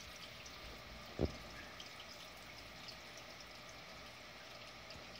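Faint, steady trickle of water circulating in a saltwater reef aquarium, with scattered light drips. A single soft low thump about a second in.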